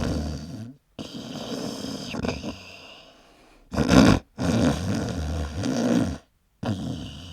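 Loud male snoring: a string of separate snores, each a low rattling pitch over breath noise, cut apart by brief dead-silent gaps. About four seconds in comes one short snore, the loudest of them.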